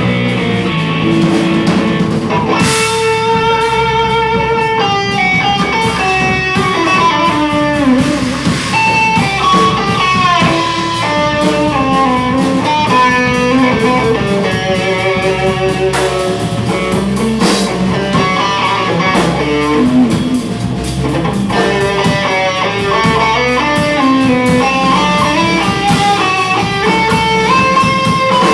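Live rock band playing: an electric guitar takes a lead melody, holding a wavering note with vibrato a few seconds in, over drums and bass.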